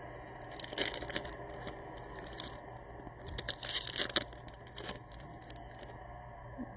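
Foil wrapper of a football trading-card pack being torn open, with crinkling and rustling of the cards in a few short spurts.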